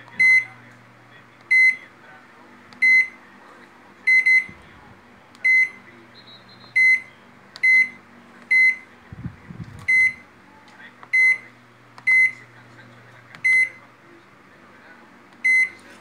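Microwave oven control panel giving one short high beep at each press of its rebuilt membrane keypad's number buttons, about fourteen beeps spaced roughly a second apart, two of them in quick succession. Each beep shows the press registering, so the new membrane is working. A faint low hum runs under the beeps and stops near the end.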